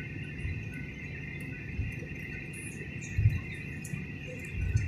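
Jet airliner cabin while taxiing: a steady high whine from the engines at idle, with a dull low thump about every second and a half as the wheels roll over taxiway joints, the loudest a little past the middle.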